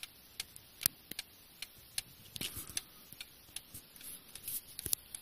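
Antique Paris clock movement with a front-mounted escapement, a Vincenti movement from around 1856, ticking evenly about two and a half times a second as its pendulum swings; it is running normally. From about halfway through, rubbing and a few knocks from handling join the ticks.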